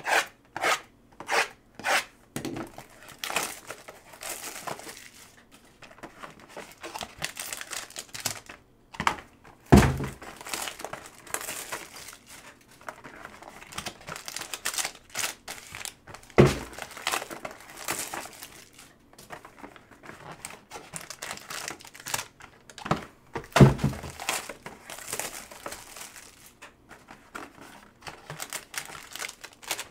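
Topps Tier One baseball boxes being opened by hand: wrapping and foil crinkling and tearing as a blade slits them, with a few sharp clicks in the first two seconds and three dull thunks as boxes are handled on the table.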